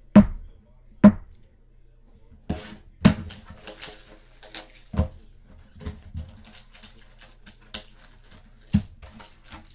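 Cardboard trading-card boxes and their packaging being handled on a table: several sharp knocks and thumps, with crinkling and rustling of wrapping in between as the boxes are opened.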